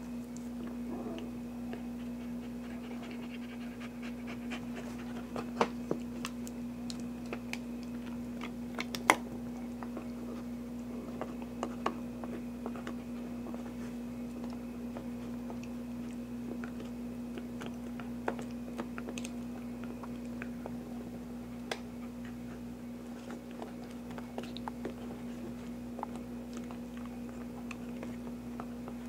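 A Pembroke Welsh Corgi puppy panting and gnawing a chew bone on carpet, with scattered sharp clicks and knocks every few seconds from its teeth and the bone. A steady hum runs underneath.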